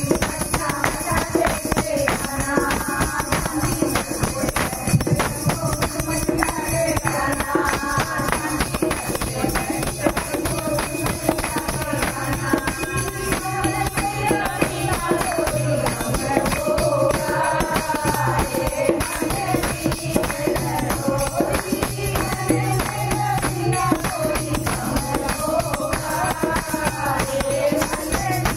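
Women singing a Hindu devotional mata bhajan together, accompanied by handheld plastic jingle clappers and tambourines shaken and struck in time.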